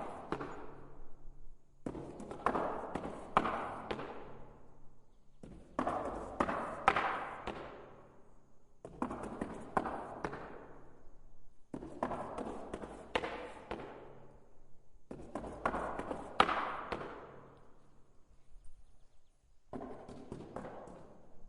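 Wooden knocks and thuds on stairs, coming in bursts of several quick impacts, each burst a couple of seconds long and repeated about every three seconds.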